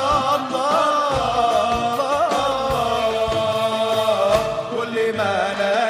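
Islamic nasheed music: a sung, melismatic vocal line over a steady percussion beat.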